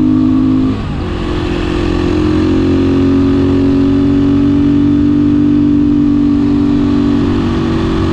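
Beta 500 RS single-cylinder four-stroke motorcycle engine running steadily under way, with a brief drop in pitch and level under a second in, as from a throttle change or gear shift.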